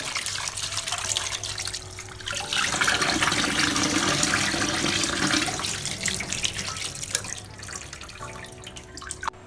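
Kitchen tap running into a steel bowl while a hand swishes and rubs shelled mole crabs in the water to wash them. The splashing grows louder a few seconds in and eases toward the end.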